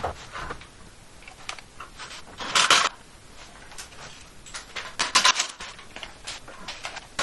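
Scattered knocks, clatter and scrapes of a wooden pocket door frame being shifted on a concrete floor and tools being handled, loudest a little over two and a half seconds in and again about five seconds in.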